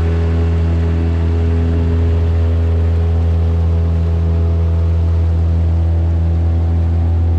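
A john boat's outboard motor running steadily under way, a constant low engine drone that holds its pitch.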